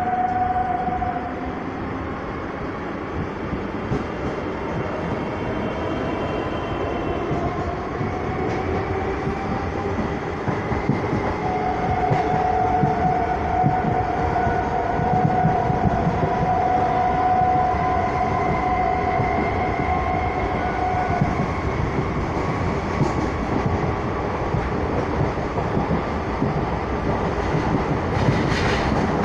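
Suburban electric local train running, heard from inside the carriage by an open window as it pulls out and gathers speed: a dense rumble of wheels on the rails with faint rail-joint knocks. A whine rises in pitch over the first several seconds, then holds a steady note for a while before fading.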